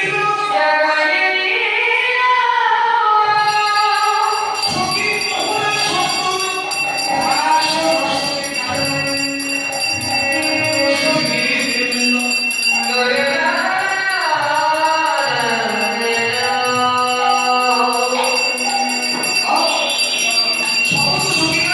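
Devotional singing by several voices with jingling bells ringing steadily along.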